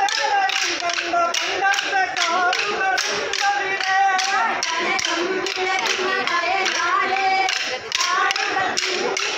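Kolkali stick dance: dancers' short sticks struck together in a steady, quick rhythm of sharp clacks, about three a second, under voices singing the song that keeps the beat.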